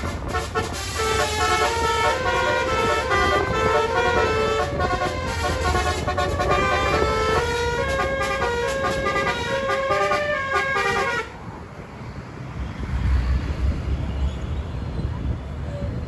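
Tour bus's basuri 'telolet' multi-tone horn playing a melody of short, stepped notes. It cuts off suddenly about eleven seconds in, leaving low engine and road rumble.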